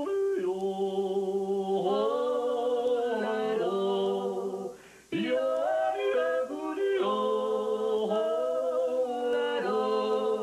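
A woman yodeling unaccompanied in Bavarian style, holding notes and stepping up and down between pitches. She sings two phrases with a short breath break about halfway.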